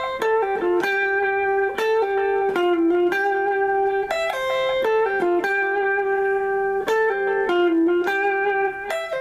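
Guitar playing a slow single-note melody in the key of C, each note ringing on before the next.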